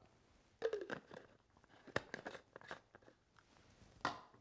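Plastic blender cups and parts being handled and set down on the counter: a handful of light clicks and knocks, the sharpest about two seconds in and a last one near the end.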